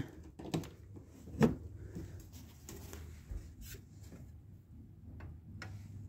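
Handling noise as an air conditioner's power cord is plugged in: a few scattered clicks and knocks, the loudest about one and a half seconds in, over a faint low hum.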